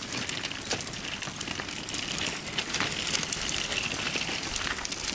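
Crackling and rustling of footsteps on a gravel path and a handheld camera being moved about, over a steady hiss.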